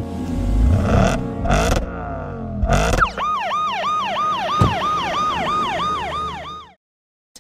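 Police siren sound effect for a toy police car: a fast yelping wail that dips and climbs about three times a second, then cuts off suddenly. Before it, a car engine sound effect with a few whooshes.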